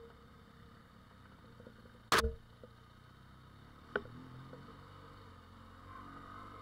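Motorcycle engine running faintly and steadily on a dirt track, with one loud sharp knock about two seconds in and a smaller click about four seconds in.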